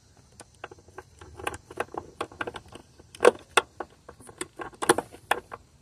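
Small hand ratchet and socket clicking and clinking on a throttle-body bolt while the socket is fitted to loosen it. The clicks come at an irregular pace, with two louder metallic clinks about three and five seconds in.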